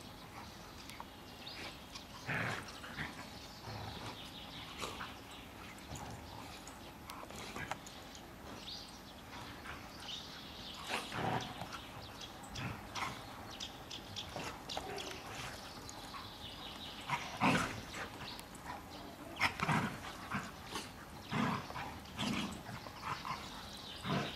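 Three standard poodles play-fighting: scattered short dog vocalisations, yips and barks, over scuffling. They come louder and more often in the last third.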